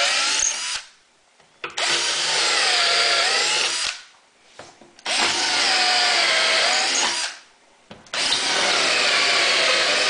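Cordless drill with a 3/8-inch bit boring pin holes through a drilling jig into a wooden table leaf. It runs in bursts of about two seconds with short pauses between holes: one run ends about a second in, then three more follow. The motor's pitch sags in the middle of each run as the bit cuts.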